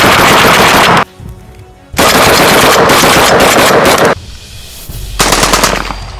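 Vepr-12 12-gauge shotgun firing on full automatic: loud, rapid shots in a long burst that stops about a second in, a second long burst from about two to four seconds in, then a shorter, quieter run of shots near the end.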